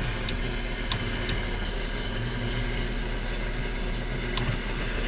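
Downed live power line arcing in a fallen tree: a steady low hum and noise, heard from inside a car, broken by sharp snaps, three in the first second and a half and one more near the end.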